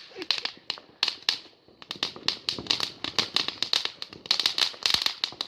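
Fireworks crackling: a rapid, irregular run of many small sharp bangs, with a short lull about a second in.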